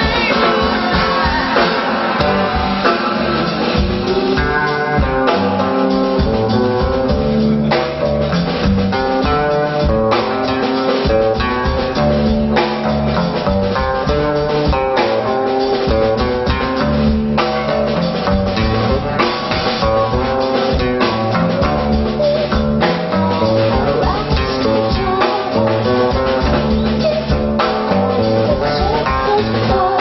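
Live band music: a woman singing into a microphone over electric guitar and a drum kit keeping a steady beat.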